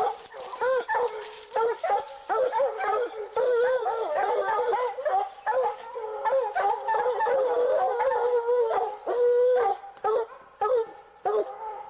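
Several Treeing Walker hounds baying, many overlapping drawn-out howling calls, the cry of a pack being put on a fresh mountain lion track.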